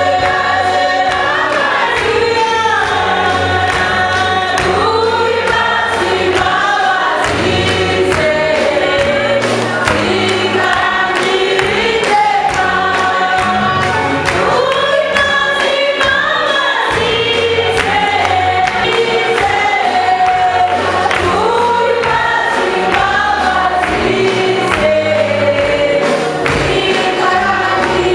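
Gospel choir singing with instrumental backing: sung melody over steady bass notes and a regular beat.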